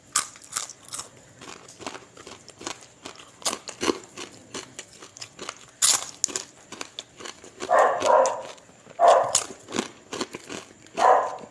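Close-up chewing and sharp crunching of fried dried fish (daing), many short crunches one after another. A dog barks about three times in the second half.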